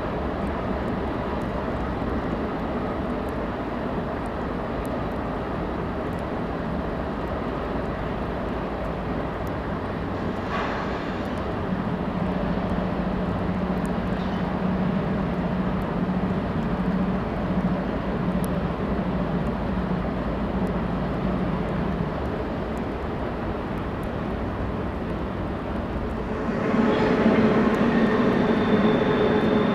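Canadian Pacific freight train's diesel locomotives running, heard as a steady low drone with a humming tone through the middle. About 27 seconds in it gets louder as the train draws closer, and a high steady squeal joins in near the end.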